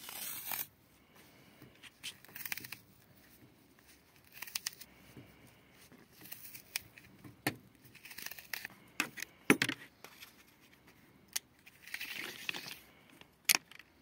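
Rustling and tearing as gloved hands pull apart a fibre-optic cable's sheath and white strength yarns, in irregular short spells with a few sharp clicks; the loudest click comes a little after halfway.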